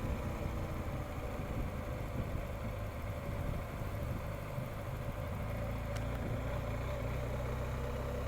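BMW R 1250 GS motorcycle's boxer-twin engine running steadily as the bike rides along, a low even hum under road noise.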